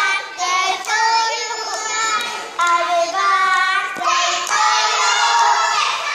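Young girls singing a hand-clapping game chant, their palms clapping against each other's in time with the song.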